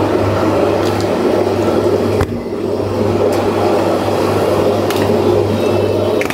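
Steady rushing noise with a low hum from a gas burner heating the stacked aluminium idli steamers, with a few light metal clinks as the idli plates are handled.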